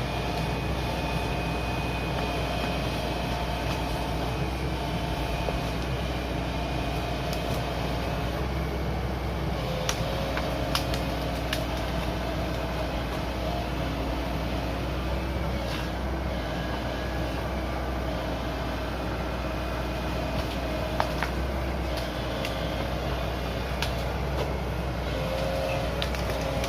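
Shantui SE75W wheeled excavator's diesel engine running steadily, with a few short sharp clanks about ten seconds in and again later.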